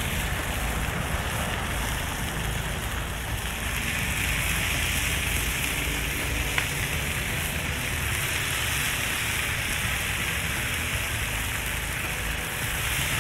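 Bacon strips sizzling on the hot steel top of a Blackstone propane griddle. The hiss grows louder about four seconds in as more strips are laid down, over a steady low rumble.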